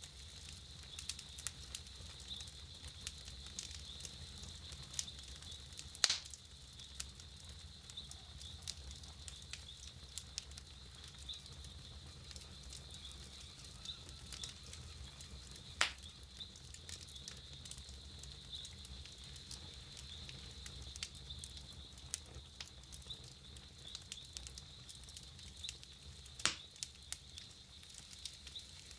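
Campfire burning with a steady run of small crackles and three louder pops, about ten seconds apart.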